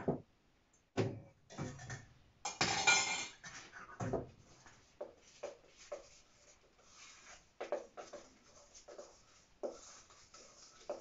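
A spoon stirring thick buckwheat batter in a stainless steel mixing bowl, scraping and knocking against the bowl in irregular strokes, with a louder stretch of scraping about two and a half seconds in.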